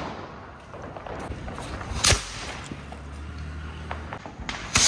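Diwali firecrackers going off: a single sharp bang about two seconds in, then a loud hissing burst near the end.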